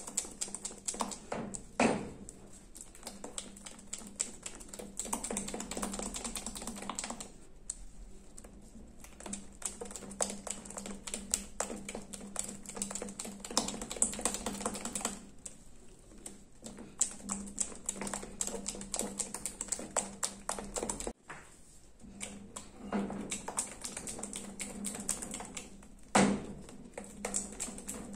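Silicone spatula stirring a thick condensed-milk cream in a ceramic-coated pan, making a steady run of light clicks and scrapes against the pan's sides and bottom, with a louder knock at about two seconds and again near the end.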